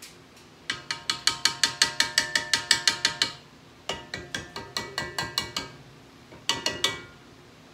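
Wire whisk attachment of a stand mixer rapped quickly against the stainless steel mixing bowl, about seven ringing metallic taps a second, in three runs: a long one, a shorter one about four seconds in, and a brief one near the end. It is the sound of knocking batter off the whisk.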